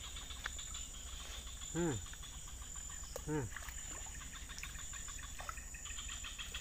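Steady, high-pitched insect chirring, with two short calls that rise and fall in pitch about two and three and a half seconds in.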